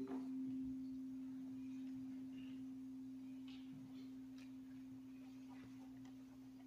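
A single chime struck once, ringing on at one steady pitch and fading slowly, with a few faint taps behind it.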